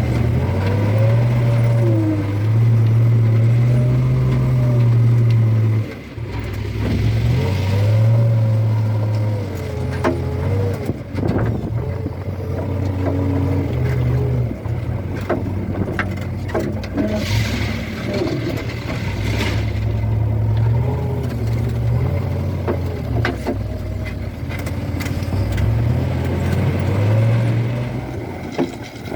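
Backhoe loader's diesel engine working hard, revving up and easing off again and again, with a whine that rises and falls above it and a few scattered knocks and clatters near the middle.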